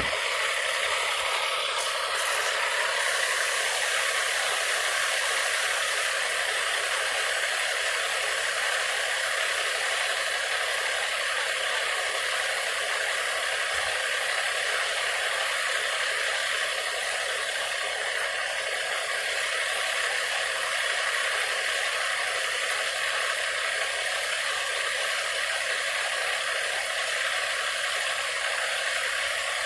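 A steady, unchanging mechanical whirring noise.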